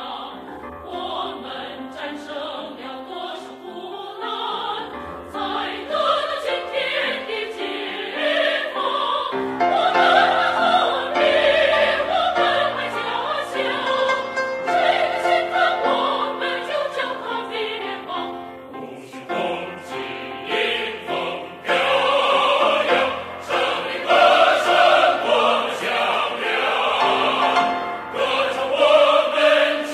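Background choral music: a choir singing sustained, swelling chords over an orchestral accompaniment.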